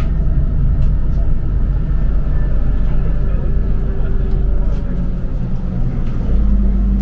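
Engine drone and road rumble inside a moving bus cabin. About six seconds in, the low rumble deepens and a steady hum sets in.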